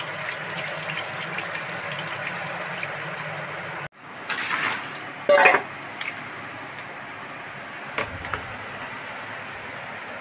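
Tap water running and splashing over okra pods in a bowl, a steady rush. About four seconds in it breaks off, followed by a short rustle and clatter as the washed okra goes into a plastic mesh basket, then a fainter steady hiss.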